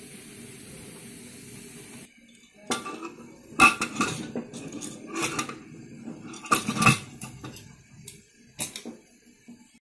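Metal pressure cooker lid being fitted and locked: a string of sharp metal clanks and clicks as the lid goes on and the handles are closed together.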